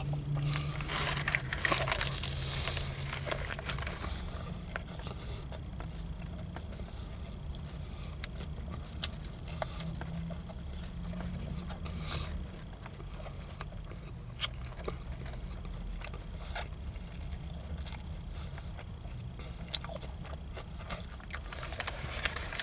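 A person chewing a bite of a sandwich, with the paper wrapper crinkling and scattered small clicks and crackles, busiest in the first few seconds, over a steady low hum.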